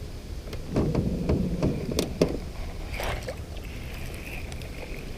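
Water splashing with a series of sharp clicks and knocks from handling in a small boat, over a low steady rumble. The splashing is loudest about a second in.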